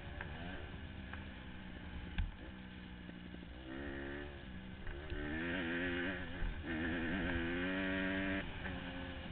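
Honda CRF150R dirt bike's single-cylinder four-stroke engine, heard from onboard, running at low throttle and then opened up three times from about four seconds in, the pitch climbing in each pull. A short knock about two seconds in.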